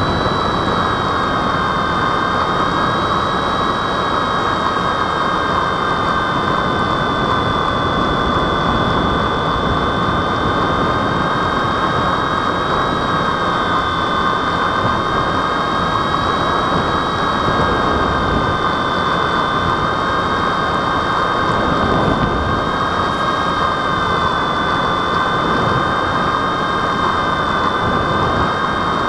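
Twin motors and propellers of an RC airplane in flight, heard from a camera mounted on the plane: a steady high whine with slight wobbles in pitch over a constant rush of air.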